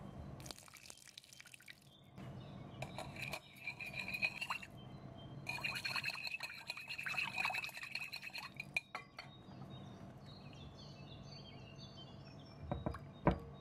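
Warm water poured briefly into a glass mixing bowl, then a wire whisk beating the liquid in the bowl: rapid clinking against the glass with a ringing tone. Near the end a spoon knocks once, loudly, on the bowl.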